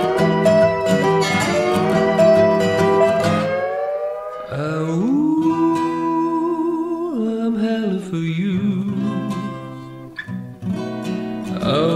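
A resonator guitar and an acoustic guitar are strummed. About four seconds in, a man's voice comes in singing long, gliding 'owooo' howls over the guitars.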